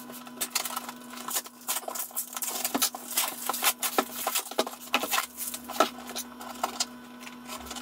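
Hands opening a cardboard shipping box and moving the packing inside: a run of irregular crinkles, taps and scrapes.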